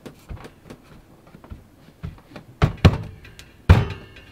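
Hands pressing and patting balls of flatbread dough flat on a plastic cutting board: a few soft taps, then three louder dull thumps from about two and a half seconds in.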